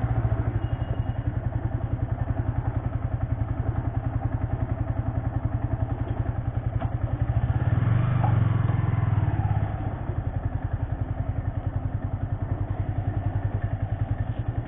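Motorcycle engine running at idle with an even beat. About eight seconds in, the engine note rises for a couple of seconds, then settles back to idle.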